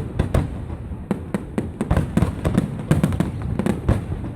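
Fireworks display: a rapid, irregular string of bangs and crackles, several a second, over a continuous low rumble.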